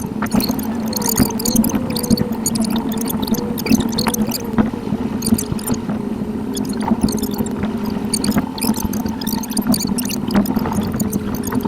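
Car driving sound from a dashcam, played at eight times normal speed: engine and road noise pitched up into a steady hum with a wavering whine, and a rapid patter of high ticks and chirps.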